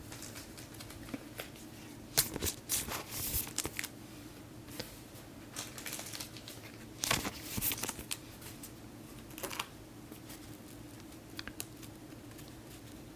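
Topps Chrome football cards and foil pack wrappers being handled: crinkling and rustling in two flurries, about two seconds in and about seven seconds in, with a few small clicks after, over a faint steady hum.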